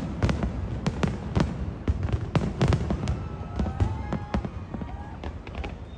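Fireworks display bursting: many sharp bangs and deep booms in quick, irregular succession, over a continuous low rumble.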